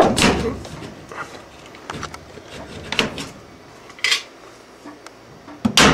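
Sheet-metal duct sections being slid and pushed together, with scraping and knocks of thin metal: a loud knock at the start, lighter knocks about once a second, and a burst of louder knocks near the end.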